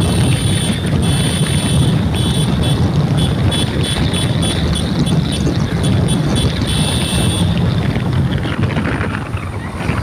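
Low road rumble and wind on the microphone from a vehicle moving through a road tunnel, with a high steady whine that flickers on and off and stops about seven and a half seconds in.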